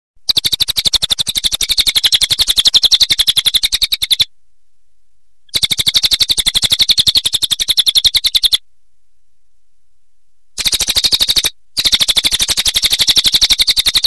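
Crested jay (cililin) giving its rapid, evenly pulsed rattling call in four bursts, the first about four seconds long and the last two close together.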